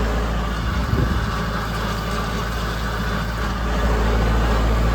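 Tractor engine running steadily at a low, even pitch while it pulls a no-till drill through standing cover crop.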